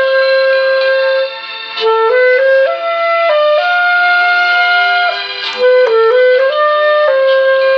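Clarinet playing a slow melody of long held notes that move step by step, with a short softer passage about a second and a half in.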